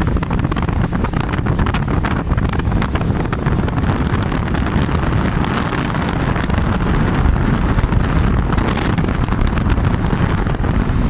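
Wind buffeting the microphone of a moving 100cc motorcycle: a steady low rumble with a constant crackle of small gusts, the bike's engine and road noise underneath.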